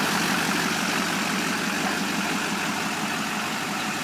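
Duramax 6.6-litre turbo-diesel V8 idling steadily with a fast, even clatter.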